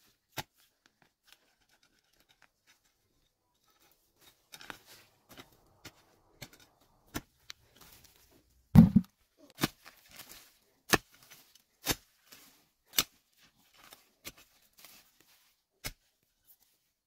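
Wooden-handled digging hoe chopping into forest soil and roots: sharp strikes about once a second, with crunching and scraping between them and the heaviest thud about halfway through.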